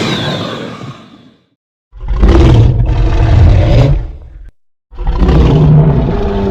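Roars of a giant cartoon Tyrannosaurus, given as a sound effect. One roar, already under way, fades out in the first second and a half; a loud, deep roar follows at about two seconds and lasts about two and a half seconds; another begins near five seconds.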